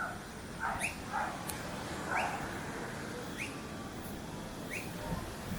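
Animal calls: short high chirps repeating about every 0.7 s, with a few louder, lower yelping calls in the first half over steady outdoor background noise.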